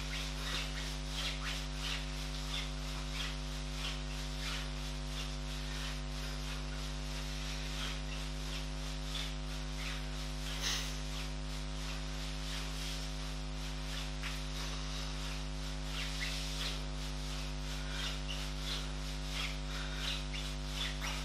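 Steady electrical mains hum under a run of short hissing and rubbing noises, about one or two a second, from a man breathing hard and his legs and body moving on a gym mat during alternating leg raises.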